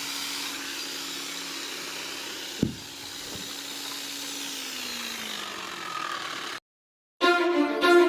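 Electric concrete cutting saw running with a steady whine and hiss, with one sharp knock about a third of the way in; its pitch drops as it winds down. After a brief silence, violin music starts near the end.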